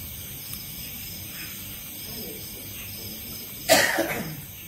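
A single loud cough about three-quarters of the way through, sudden and brief. Insects chirp steadily in the background.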